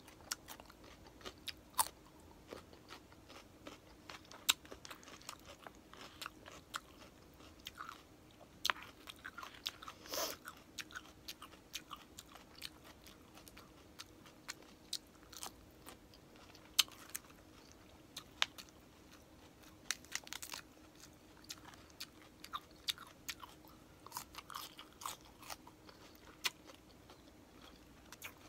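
A person chewing crunchy food close to the microphone, crispy pata (deep-fried pork leg) and raw vegetables, with many short, irregular crisp crunches and mouth sounds. One longer, fuller mouth sound comes about ten seconds in.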